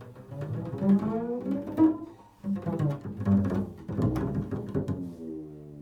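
Improvised solo instrumental music on a low-pitched instrument: a run of short, sharply attacked notes, then a long held low note near the end.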